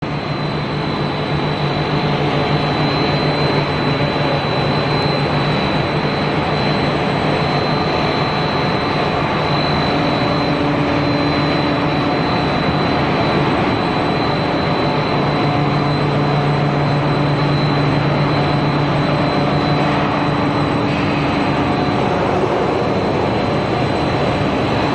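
Machinery of a core-filled pillow snack production line running: a loud, steady mechanical drone with a high steady whine and lower hums that come and go.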